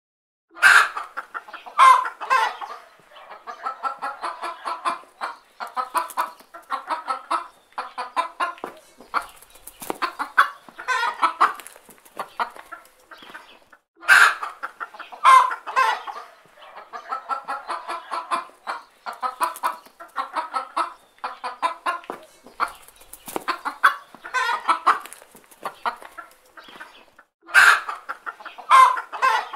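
A hen clucking in long runs of short, rapid clucks. Every so often she gives two louder, sharper calls, and this whole stretch repeats about every 14 seconds.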